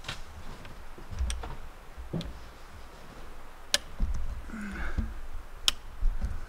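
A handful of sharp snaps and clicks of dry brush and rotted wood debris being moved through, over an uneven low rumble.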